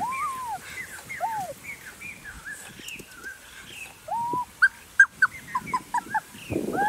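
Animal calls: several drawn-out rising-and-falling cries and many short high chirps, with a quick run of chirps about two thirds of the way in.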